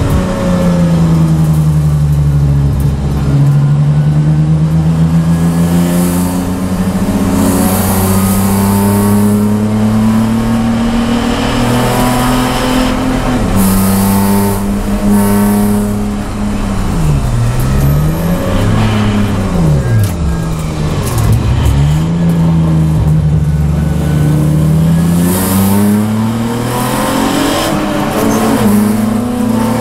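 Race car engine heard from inside the cabin at racing speed, its pitch climbing as it pulls and dropping at each gear change. Around the middle it falls and rises sharply several times as the car brakes and downshifts, then pulls hard again.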